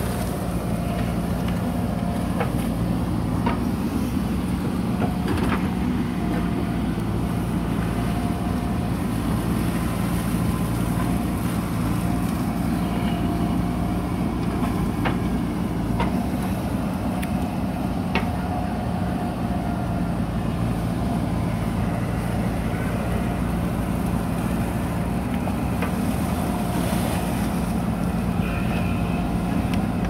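JCB 3DX backhoe loader's diesel engine running steadily as the backhoe digs, with a faint higher whine that comes and goes and a few faint knocks.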